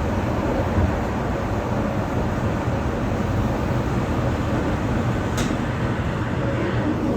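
ED4M electric multiple unit running at speed, heard inside the carriage: a steady rumble of wheels on the track, with a brief sharp click about five seconds in.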